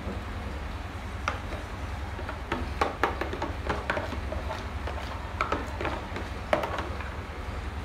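Metal spoon scraping and tapping against a plastic measuring cup and mixing bowl, a scatter of short clicks and scrapes, over a steady low hum.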